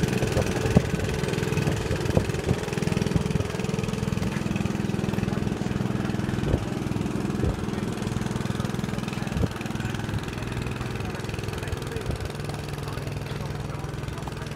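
An engine idling steadily, with a few sharp clinks and knocks over it.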